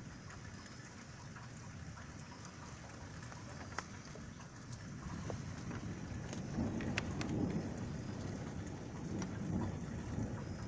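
Heavy rain falling with scattered drops ticking close by, and thunder rumbling low, swelling about halfway through and rolling on.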